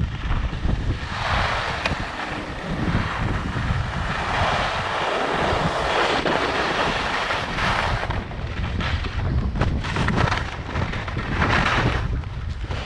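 Wind rushing over the microphone of a downhill skier, a steady low rumble, with the hiss and scrape of skis carving across groomed snow swelling up with each turn.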